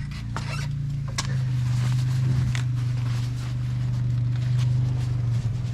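Steady low hum of a running motor, dropping slightly in pitch about a second in, with a few faint clicks.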